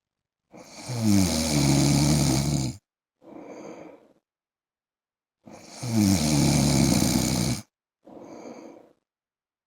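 A man snoring in his sleep: two loud, rattling snores about five seconds apart, each lasting about two seconds. Each loud snore is followed by a shorter, much quieter breath.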